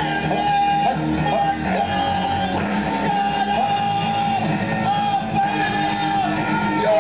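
Live comedy rock song: two men singing and shouting into microphones over amplified rock music with guitar, with long held sung notes, ringing in a large hall.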